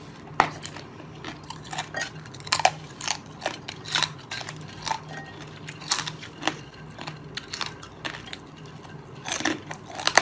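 Close-up eating sounds of shellfish: irregular sharp cracks and crunches of shell being broken and bitten, with chewing in between.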